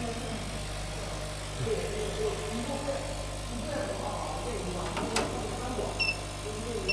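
Steady low electrical hum of a laser machine's running equipment, with faint voices behind it. A sharp click comes about five seconds in and a short high beep near the end.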